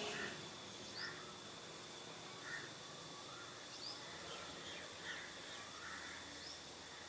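Faint birds calling in the background: short chirps about every second or so, over a steady hiss and a thin, high, steady tone.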